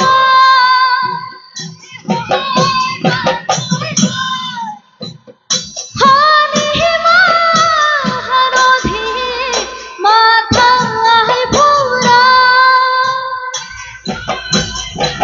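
Assamese Bihu husori song: female voices singing together over a steady beat of percussion strokes. The music drops away briefly about five seconds in, then picks up again.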